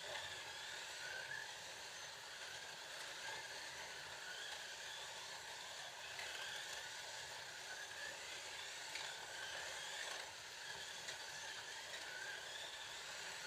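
Several Scalextric slot cars running laps on a plastic track: a steady whirring of their small electric motors and pickup braids, with a whine that rises and falls over and over as the cars speed up on the straights and slow for the corners.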